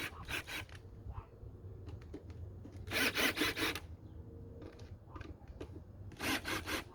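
Three short bursts of rapid rasping clicks as parts of a motorcycle air intake are worked and fastened into place.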